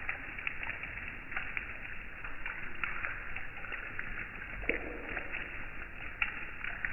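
Light rain: scattered drops ticking irregularly, several a second, over a low rumble, with one duller knock a little past the middle.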